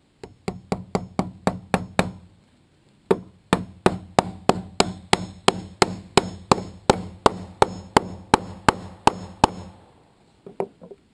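Steel claw hammer driving nails through a steel Simpson Strong-Tie H1 hurricane clip into the wood of a truss and top plate. A run of about eight blows, a short pause, then a longer run of about twenty blows at roughly three a second, with a few light clicks near the end.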